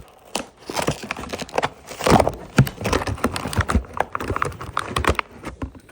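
Toy packaging being handled and pried open: a rapid, irregular run of knocks and clicks against cardboard and plastic.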